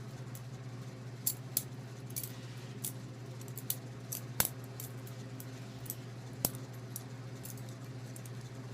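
Benchmade butterfly knife trainer being flipped through tricks: irregular light metallic clicks and clacks as the handles swing round and snap against the blade and each other, with two sharper clacks about halfway through and a little later.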